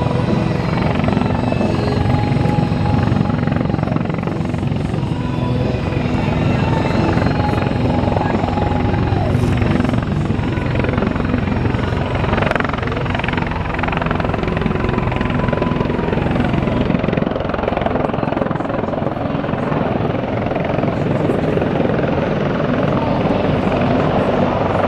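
CH-53 heavy-lift helicopter hovering with a heavy underslung load: steady, loud rotor chop with a turbine whine over it.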